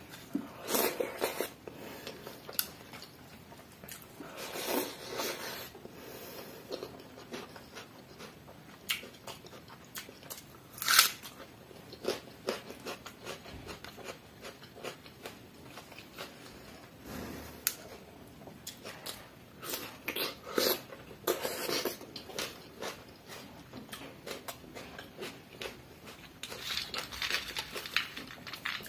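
Close-up eating sounds: a man chewing and crunching food in irregular clusters, with the wet squish of water-soaked rice (pani bhat) being mixed and squeezed by hand on a steel plate.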